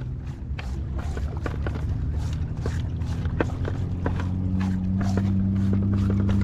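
A steady low engine hum, growing louder from about four seconds in, over irregular light clicks and crackles.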